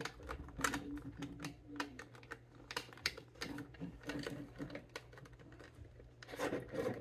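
Irregular clicks and taps of hard plastic toy parts as small accessories are handled and pressed onto storage pegs inside a Transformers toy trailer, a few clicks a second, with a denser cluster of clicks near the end.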